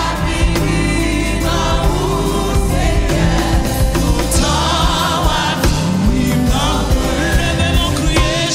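Gospel choir and a lead singer singing a worship song in Haitian Creole over a band with keyboard and bass, the voices held with vibrato.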